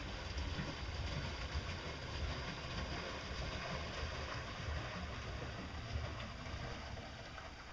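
Homemade pedal-driven paddle-wheel boat going past, its paddle wheel churning the water, with wind buffeting the microphone. The sound fades near the end as the boat moves off.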